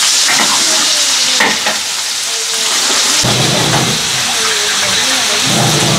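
Meat and tomatoes sizzling in a large paella pan as a metal spatula stirs and scrapes them, with small clicks. About three seconds in, tap water runs into a metal pot, adding a fuller rushing sound.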